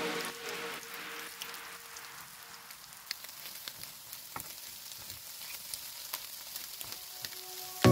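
Mashed egg and vegetables sizzling in oil in a frying pan while being stir-fried, with scattered light clicks and scrapes of a wooden spatula against the pan. The tail of a music track fades out over the first couple of seconds.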